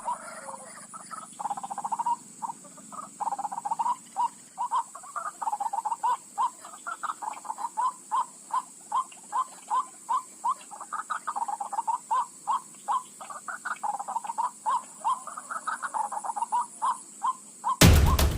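White-breasted waterhen calling, a long run of repeated short croaking notes at about two a second, with a faint steady high-pitched whine behind. Loud thumping beats cut in suddenly near the end.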